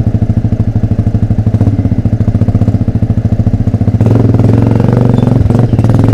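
Motorcycle with an open exhaust running in traffic, its separate exhaust beats clearly audible. It gets louder and smoother from about four seconds in.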